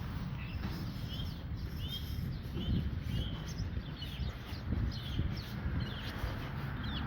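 Birds chirping: many short, quick chirps, one after another, over a low rumbling noise.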